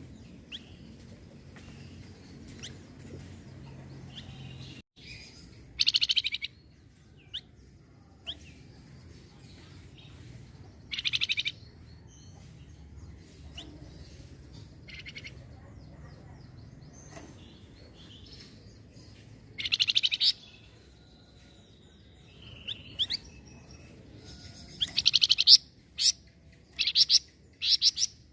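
A flamboyan (golden-bellied gerygone) singing: short bursts of rapid high trills, about 6, 11 and 20 seconds in and several in close succession near the end, between soft scattered chirps. A steady low hum runs underneath.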